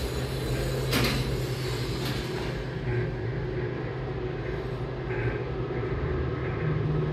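Steady low hum and rumble inside a subway station elevator car with its doors closed, with a sharp click about a second in.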